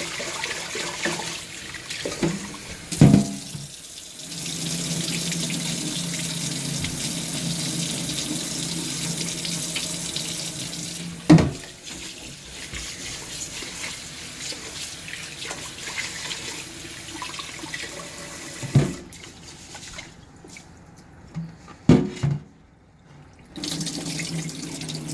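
Kitchen tap running into a pot as rice is washed to rinse out the starch, with a few knocks of the pot. The water stops for a few seconds near the end.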